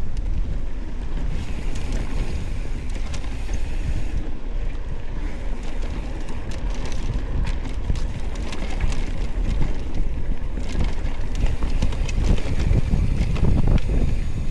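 Wind rushing over the microphone of a mountain bike ridden fast down a rough dirt trail, with the bike's frame and parts rattling and knocking over bumps throughout.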